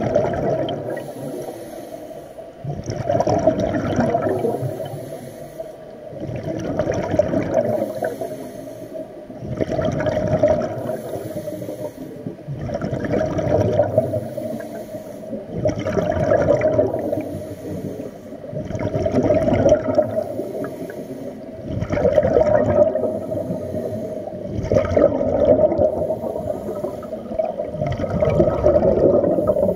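Scuba diver breathing through a regulator, heard underwater: a bubbling burst of exhaled air about every three seconds, each swelling and fading in turn.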